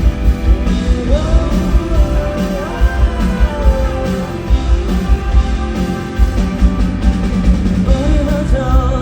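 A live pop-rock band playing, with a male voice singing the melody over a steady drum beat and bass. The voice comes in about a second in.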